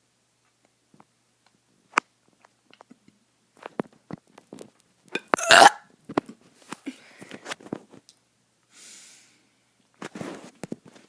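A child gulping air and burping: scattered short clicks and gulps, the loudest burp about five and a half seconds in, and another shorter burp near the end.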